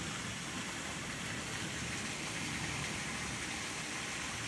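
Heavy rain pouring down, a steady dense hiss.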